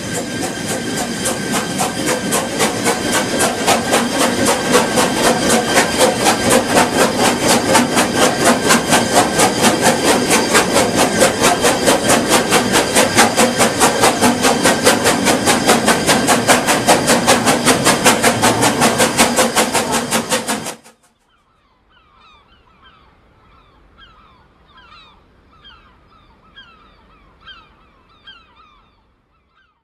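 Narrow-gauge steam locomotive working hard, its exhaust beating fast and evenly and growing louder, until it cuts off abruptly about two-thirds of the way through. After that there are only faint, repeated chirps.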